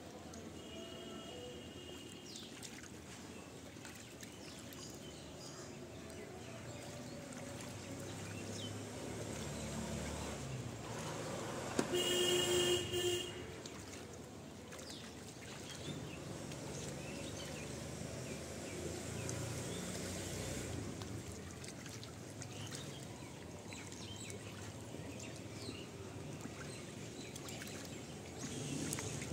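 Light splashing of water in a small inflatable paddling pool where a bird is bathing, over steady outdoor background noise. About twelve seconds in, a louder steady-pitched call or honk lasts about a second.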